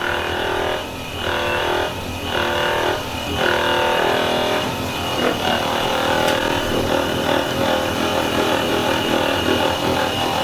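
Electric massager motor running against the patient's back, its hum dipping and recovering about once a second for the first few seconds, then running more steadily.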